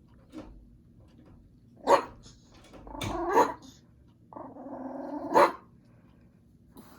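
Chihuahuas growling and yapping at each other while guarding their food: a few short sharp barks, and a longer rattling growl about four and a half seconds in that ends in a loud bark.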